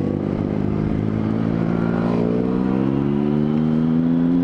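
Triumph Speed Triple inline three-cylinder engine pulling under throttle as the motorcycle accelerates, its pitch rising slowly and evenly.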